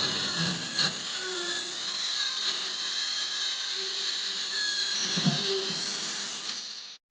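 Small high-speed power tool running steadily against the rusted metal of an old pistol, cutting off suddenly near the end.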